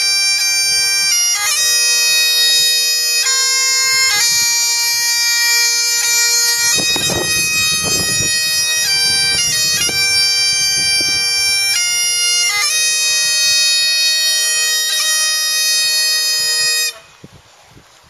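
Several Great Highland bagpipes playing a tune together over steady drones. The pipes stop abruptly about a second before the end.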